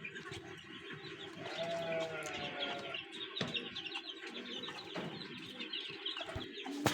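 Farmyard birds: a continuous chatter of small high chirps, with one longer, lower bird call about two seconds in, and a sharp knock about halfway through.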